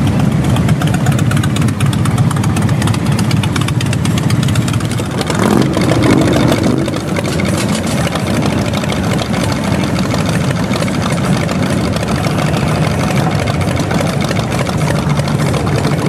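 Many motorcycle engines running together in a steady low din as a procession of bikes rides slowly past. About five seconds in, one engine revs up louder, rising in pitch, then settles back.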